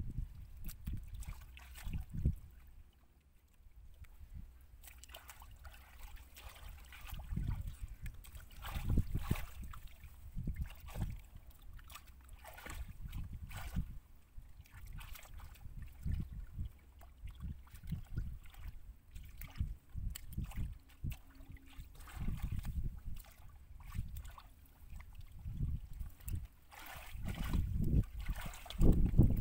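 Shallow muddy water sloshing and splashing irregularly as hands and bare feet move through it, groping in the mud, with a louder burst of splashing near the end.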